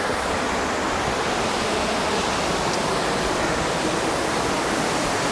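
A waterfall running high with snowmelt-swollen flow, a steady, unbroken rush of falling water.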